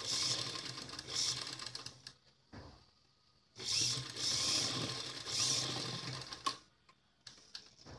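Motor-driven Usha sewing machine stitching the last stretch of a blouse's sleeve seam, in two runs of about three seconds with a short stop between them. A few light clicks follow near the end as the machine stops.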